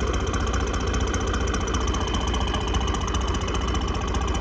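Diesel engine running steadily at low revs with an even, fast firing clatter.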